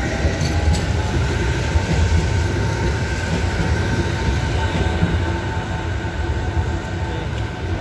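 Articulated street tram passing close by: a steady low rumble of its wheels on the rails, with a steady whine above it.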